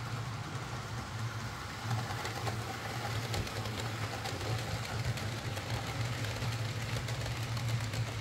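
OO gauge model trains running on the layout: the steady hum of the small electric motors with wheels rolling along the track and faint clicking.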